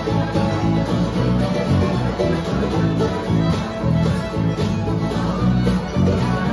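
Live acoustic string band jamming a folk tune: several acoustic guitars strummed and picked together in a steady rhythm.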